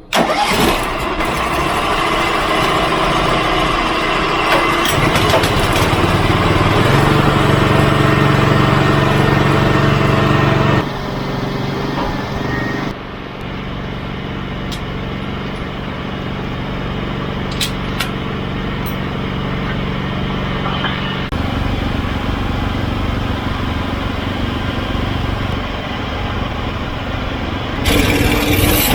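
Portable bandsaw sawmill's small gasoline engine running steadily under load while sawing, the sound shifting abruptly a few times between stretches.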